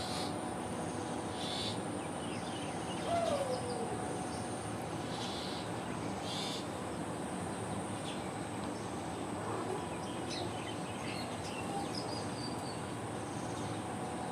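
Steady background noise with a faint high steady whine, and a few faint short chirps; one short falling call about three seconds in.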